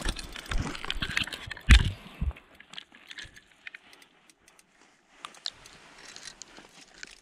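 Camera knocking and scraping against the ice walls of an ice-fishing hole: a cluster of clicks and dull thumps, the loudest just under two seconds in. Then only scattered faint ticks and crackles.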